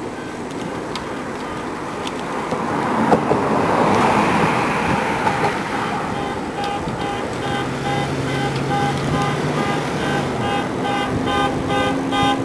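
City street traffic and rushing noise heard from a moving bicycle. From about six seconds in, a fast, evenly repeating beep sounds over it.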